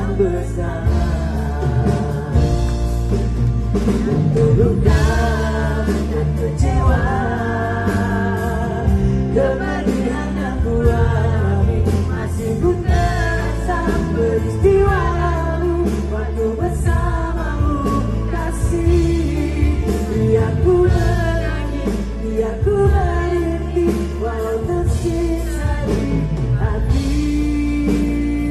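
Male lead vocalist singing live into a handheld microphone over a full band, with strong sustained bass under the melody.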